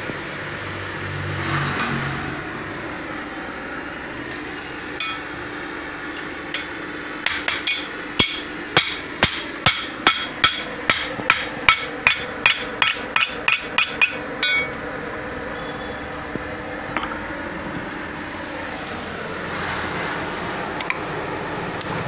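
Hand hammer striking a vettukathi (machete) blade in a run of about twenty sharp, ringing metal blows, roughly three a second. They start with a few scattered strikes about five seconds in and stop around fourteen seconds. A steady hum from the forge's electric blower motor runs underneath.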